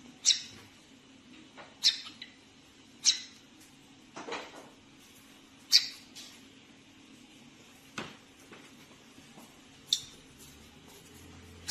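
Parrot hidden under a cap giving short, sharp squawks, about six, a second or two apart, each dropping in pitch.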